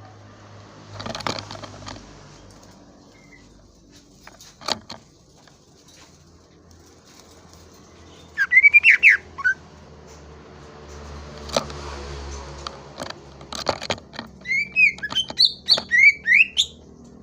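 Greater green leafbird (cucak ijo) singing in short bursts: a quick run of loud whistled notes about halfway through, then a string of sharp chirping notes near the end, with rustling and clicks between.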